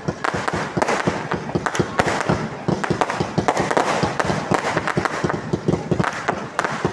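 Fireworks going off in a rapid, continuous string of sharp bangs and crackles, many per second.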